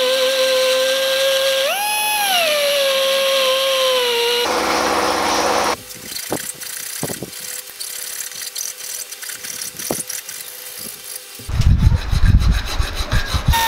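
Handheld rotary tool with a ball burr grinding mild steel, its whine rising briefly about two seconds in and dropping at about four and a half seconds. Then a flat hand file scraping across the steel, quiet with a few clicks at first and in loud, quick strokes near the end.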